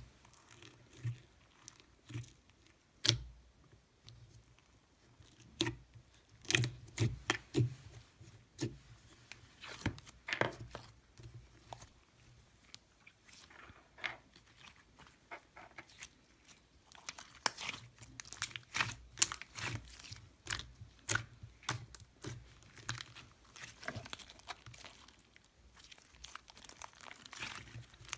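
Slime being squished, pressed and stretched by hand, making irregular sharp clicks and pops that come thicker in the second half.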